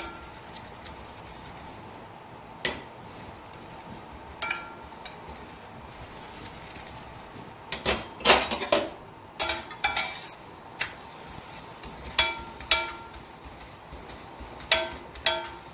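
Metal spoon and steel spatula clinking and tapping against a stainless-steel frying pan and a small glass bowl of ghee: scattered sharp clinks that ring briefly, some in quick clusters, over a low steady background noise.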